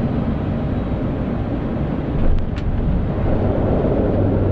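Cockpit noise of an ATR 72-600 turboprop in the flare and touchdown: steady engine and airflow noise with a low hum. About two seconds in comes a brief thump with a couple of sharp clicks as the main wheels touch down.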